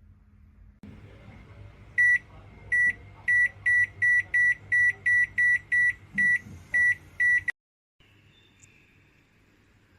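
Sharp R-22A0 microwave oven's touch-control panel beeping: about a dozen short high beeps at uneven spacing as its keys are pressed, over a low hum. The beeps stop and the sound cuts off suddenly near the end.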